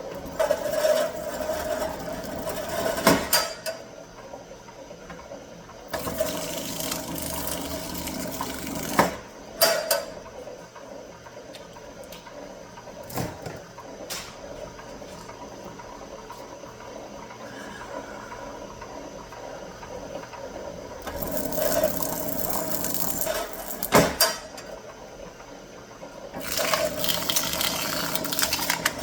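Copper wire being stripped of its insulation in four passes of about three seconds each, each ending in a sharp click, with a few single clicks between passes.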